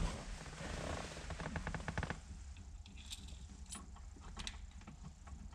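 A quick run of small metallic clicks about a second in, then scattered light ticks, as shifter mounting bolts are handled and threaded in by hand.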